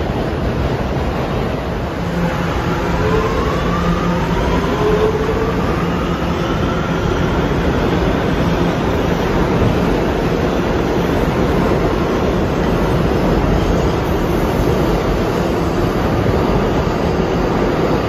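New York City subway train running past the platform, with steady, loud wheel and track noise and a faint rising whine about two to five seconds in.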